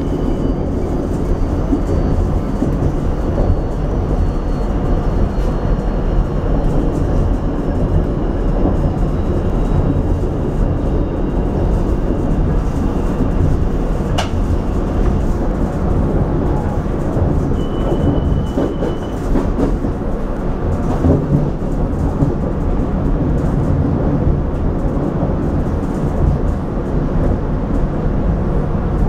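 Rotem Silverliner V electric railcar running, heard from inside the car: a steady low rumble of wheels on rail, with a faint high whine that falls slowly in pitch over the first dozen seconds. A single sharp click comes about halfway through.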